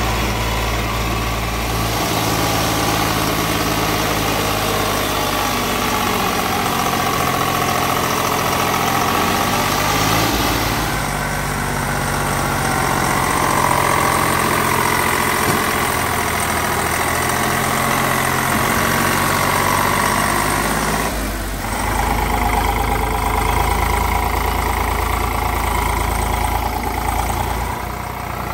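Farm tractor's diesel engine running steadily. The engine note changes abruptly three times, about 2, 10 and 21 seconds in.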